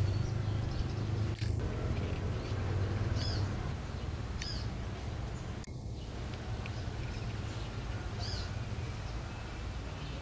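Short, high bird chirps, one every few seconds, over a low hum that eases off about three and a half seconds in, with a single sharp click near the start.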